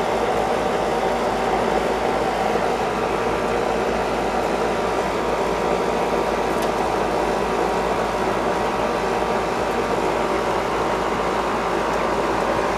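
A steady mechanical drone with a faint constant hum, unchanging throughout.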